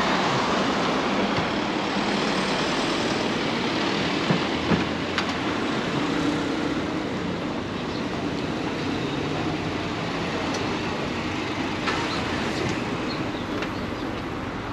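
Road traffic on a busy city street: a steady wash of car and engine noise.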